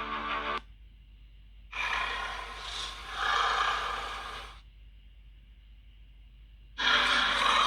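Kaiju creature sound effects: a pitched call cuts off just after the start. Then a harsh, breathy exhale of about three seconds swells again halfway through, and another starts near the end.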